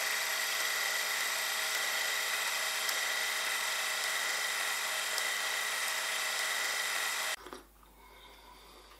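Steady mechanical whirring with a constant high whine, the sound effect laid under an animated intro, cutting off suddenly about seven seconds in; faint room tone follows.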